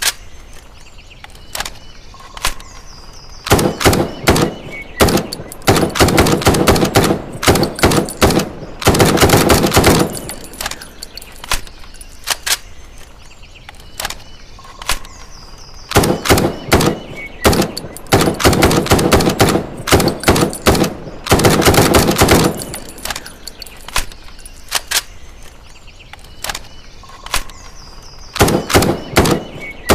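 M656 rifle firing in automatic bursts: long runs of rapid shots alternate with sparser single and short-burst shots, the same sequence coming round again about every twelve seconds.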